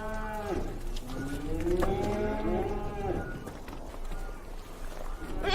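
A cow mooing: the end of one call in the first half second, then one long moo that rises in pitch and holds for about two seconds.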